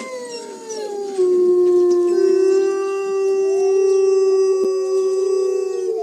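Several wolves howling together in chorus: overlapping long notes at different pitches, some gliding up and down. A strong, steady, lower howl comes in louder about a second in and holds.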